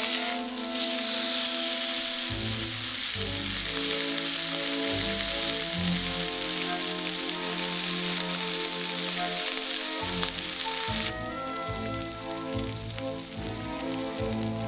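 Beef steak sizzling in hot oil in a non-stick frying pan, a dense steady crackle that drops sharply to a quieter sizzle about eleven seconds in. Background music with held notes plays underneath.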